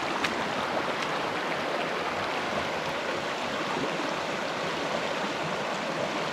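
River water flowing steadily, the river running a little high.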